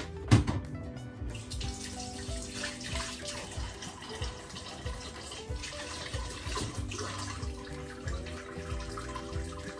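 Water running steadily from a tap, starting a little over a second in, with background music playing throughout; a sharp knock just after the start.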